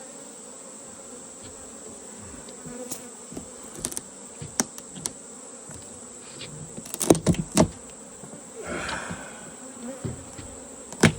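Honeybees buzzing steadily around an opened hive during a live cutout, with scattered sharp knocks and clicks, a cluster about seven seconds in and a loud one near the end.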